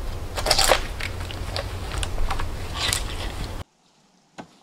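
Dead wooden poles and branches being handled and worked into place: a run of dry cracks, creaks and rubbing over a steady low rumble, which cuts off abruptly about three and a half seconds in. A single faint knock follows near the end.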